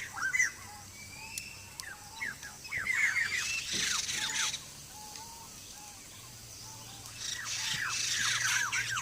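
Birds calling in a forest: quick downward-sweeping notes come in rapid clusters about three seconds in and again near the end, with short, lower single notes in between.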